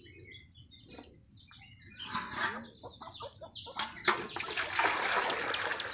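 Faint hen clucks in the first two seconds, then clinks of an aluminium pot against a metal bucket. From about four seconds in, water pours and splashes as the pot is dipped and tipped over the bucket.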